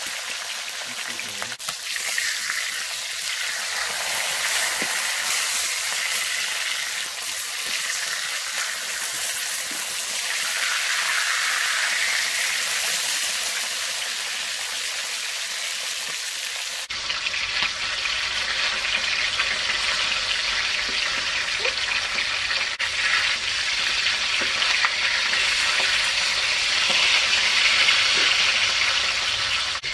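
Whole fish frying in hot oil in a steel wok, with a steady sizzle as they are turned in the pan.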